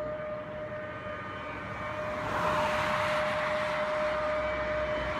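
A fast vehicle approaching at speed: its engine and rushing noise build louder from about two seconds in. A steady high tone runs underneath throughout.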